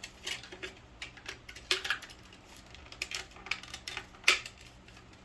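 Handling noise: irregular light clicks and taps of a smoke alarm and its papers being moved and set aside, with one sharper knock a little after four seconds in.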